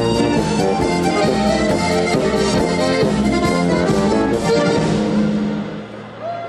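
Live Slovenian-style polka music from a piano accordion and a Pečjak diatonic button accordion playing together, with a steady bass line. The playing thins out and gets quieter near the end.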